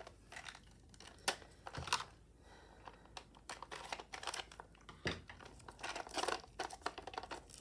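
Plastic packaging crinkling and tearing in handling, with scattered small clicks, as a newly delivered set of small computer screwdrivers is unwrapped.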